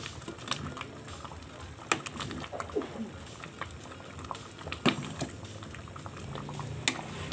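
Pot of thick mung bean soup bubbling at a simmer as a metal ladle stirs and scoops it. A few sharp clinks of the ladle against the metal pot come through, the loudest about two seconds in and again about five seconds in.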